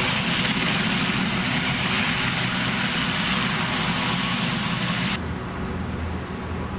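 Westland Sea King search-and-rescue helicopter running on the ground, its turboshaft engines and main rotor making a loud, steady noise. It cuts off abruptly about five seconds in, giving way to a quieter low, steady hum.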